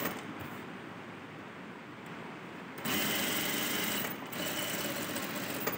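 Lockstitch sewing machine stitching a seam, running quietly at first and then louder and steadier from about three seconds in, with a brief pause a little after four seconds.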